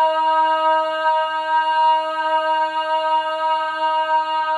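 A woman's voice holding one long wordless note at a steady pitch. It is a single sustained ground note sung in one-note vocal sound-healing practice.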